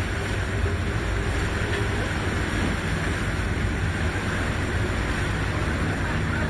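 Scania-engined river boat under way: a steady low engine drone under the rush of the churning wake and wind across the open stern deck.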